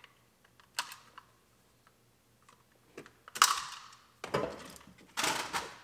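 Plastic car dashboard trim being handled, with a sharp click just before a second in, then three short rustling scrapes over the last two and a half seconds.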